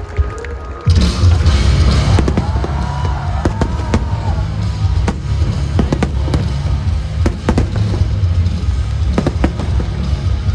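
Fireworks display: a rapid barrage of shell bursts and cracks over a dense, continuous booming rumble that starts about a second in, with the pyromusical's soundtrack playing alongside.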